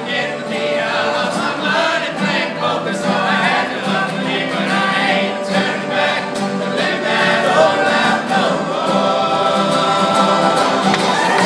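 A large group of men singing together over an acoustic band of guitars, banjos, accordion and fiddle, played live on stage.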